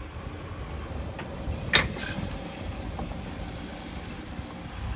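Narrow-gauge steam tank locomotive 99 6001 rolling slowly past at close range, a low rumble with a few light clicks and one sharp metallic clank about two seconds in.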